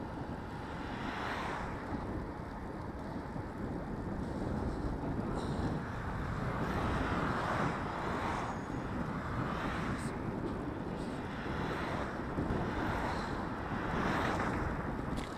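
Wind buffeting the microphone over steady road and tyre noise, while oncoming cars swish past one after another, each a rising-then-fading whoosh. The loudest pass comes near the middle and another near the end.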